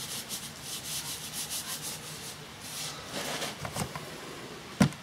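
Irregular rubbing and scraping handling noises, a run of short scratchy strokes, followed by a few dull thuds and one sharp knock near the end.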